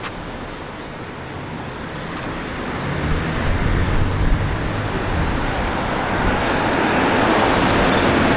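Road traffic: cars driving along a town street, the engine and tyre noise building over the last few seconds as a car approaches.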